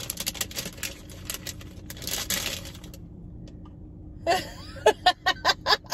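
Crinkling and rustling of a plastic wrapper as an air freshener is pulled out of it, for about the first three seconds. A few sharp clicks and taps follow near the end.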